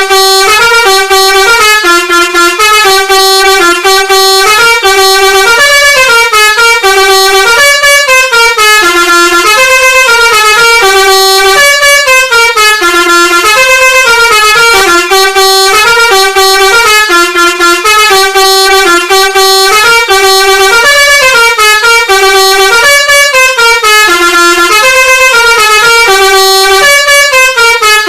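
Basuri-style telolet bus horn, the multi-note musical air horn of Indonesian buses, playing a continuous looping melody. The notes step up and down without pause, each lasting about half a second, very loud.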